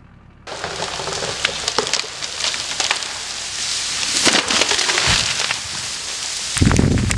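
A felled tree crashing down through the forest: a dense rush of branches cracking and snapping, with snow and debris showering down, starting suddenly about half a second in. A heavy low thud and rumble near the end as the trunk hits the ground.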